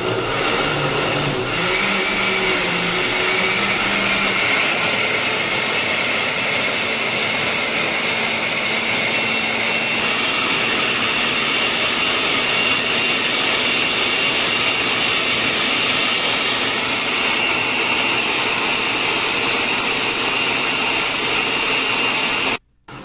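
Countertop blender running at steady speed, puréeing kale, fruit and coconut water into a smoothie: a loud, even motor whine, with lower wavering tones in the first few seconds as the chunks break up. It stops suddenly near the end.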